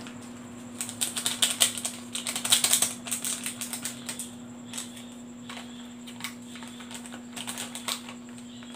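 Crinkling plastic of a small seasoning sachet being torn open and shaken over noodles: dense crackling for a couple of seconds near the start, then sparser rustles. Near the end the large plastic instant-noodle bag crinkles again as a hand reaches into it.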